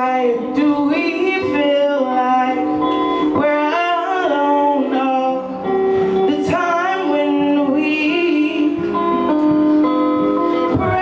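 A singer singing a song over instrumental accompaniment, holding long notes that bend in pitch.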